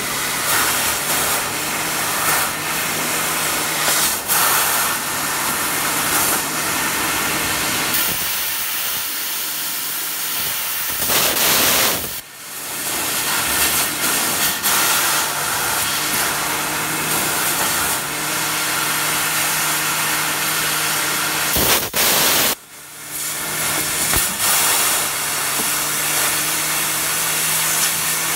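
Fiber laser cutting head cutting 3 mm stainless steel: a loud, steady hiss of the assist-gas jet through the nozzle, over a low machine hum. The hiss swells and then breaks off briefly twice as the cut stops and restarts.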